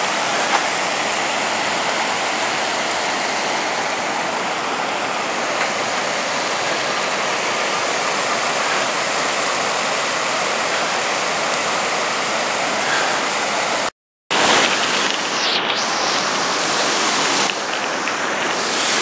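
Creek water rushing over rocks below a low dam, a loud, steady rush. It cuts out completely for a moment about two-thirds of the way through, then resumes.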